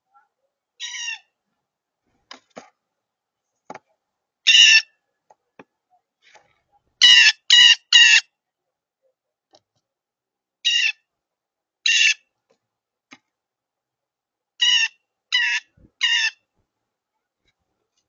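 Blue jay giving loud, harsh jay calls, about ten in all. Some come singly and some in quick runs of three, with a few faint clicks between.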